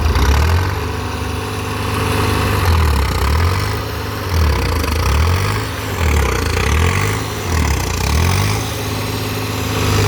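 Tractor's diesel engine pulling hard under load, its note sagging and recovering about once a second, as it tugs a combine harvester stuck in mud.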